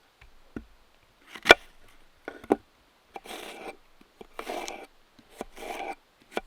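Crisp Honeycrisp apple being cut and crunched: three sharp knocks, then a run of short crunches about a second apart.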